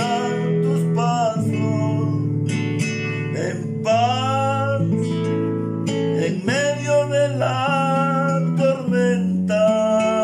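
A man singing long, held notes of a Spanish-language worship song over acoustic guitar accompaniment.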